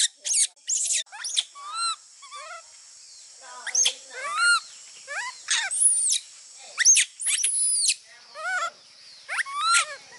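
Baby monkey crying in shrill squeals, over and over: about a dozen short, high calls, each arching up and down in pitch.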